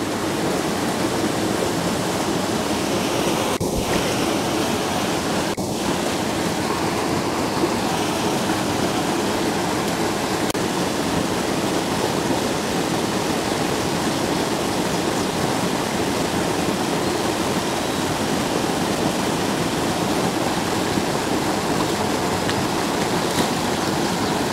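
Steady rushing of water pouring over a spillway into a pool.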